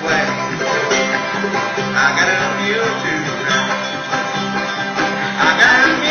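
Small bluegrass band playing live: clawhammer-style banjo with guitar, mandolin and bass.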